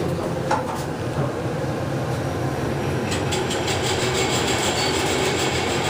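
Kone elevator car travelling down, a steady rumble with light rattling that sounds kind of shaky; the rattling ticks grow busier about halfway through.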